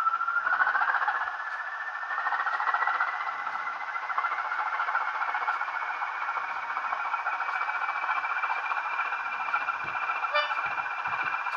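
Bachmann Class 20 model locomotive's sound decoder playing a Class 20 diesel engine starting up through its small onboard speaker: a whine rises in pitch over the first two or three seconds, then the engine settles to a steady idle with the whine held high above it.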